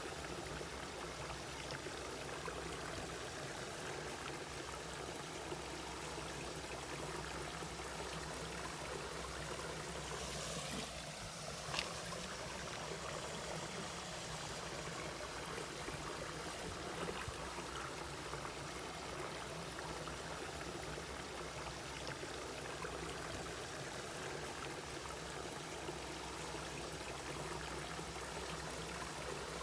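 Mountain valley stream flowing, a steady rush of water, with one brief click about twelve seconds in.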